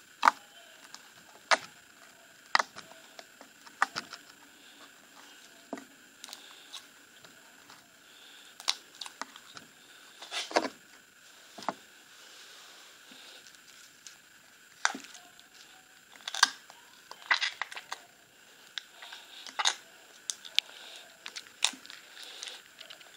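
Soft glittery slime being squeezed and kneaded by hand, giving irregular sticky clicks and pops, some sharp and some faint, with short gaps between them.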